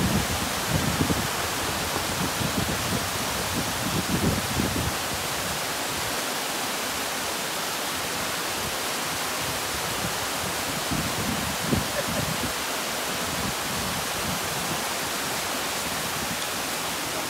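Mountain waterfall cascading over rocks: a steady, even rush of water, with a few low rumbles in the first five seconds and again around eleven to thirteen seconds.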